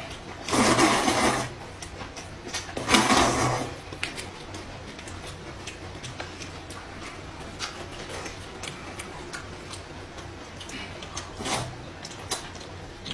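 Rice noodles being slurped up loudly in two long slurps in the first few seconds and a shorter one near the end, with a run of small wet chewing and smacking clicks between them.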